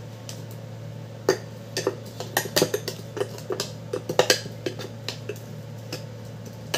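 Sharp plastic clicks and knocks as a Braun mini chopper's motor unit and lid are handled and lifted off the bowl, the motor stopped. A steady low hum runs underneath.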